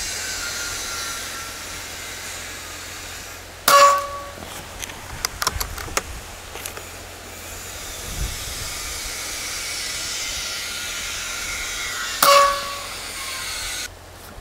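Precihole PX120 Minotaur PCP bullpup air rifle firing two shots about eight and a half seconds apart, each a sharp report followed by a brief ringing tone. Small clicks of handling and reloading follow the first shot. Steady wind noise runs underneath.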